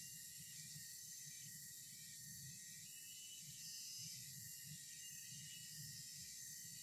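Near silence: faint, steady outdoor background hiss with a soft, uneven low rumble.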